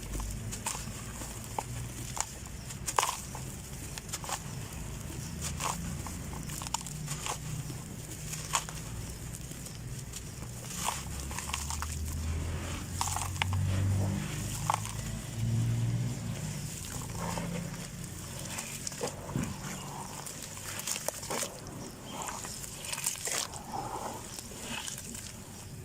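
Dry red dirt being crumbled, giving irregular short crunches and crackles that come thicker near the end, over a low rumble in the middle.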